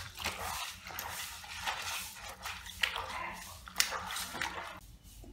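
Water splashing and sloshing in a bucket as moringa leaves are swished about by hand to wash them, in an uneven series of small splashes.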